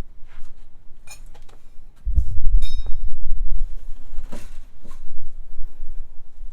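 Metal objects clinking, two sharp clinks that ring briefly, about a second in and again near three seconds, with a few softer knocks. A heavy low rumble starts about two seconds in and carries on.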